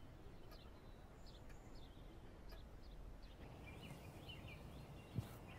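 Faint outdoor ambience with small birds chirping now and then, and a single soft low thump near the end.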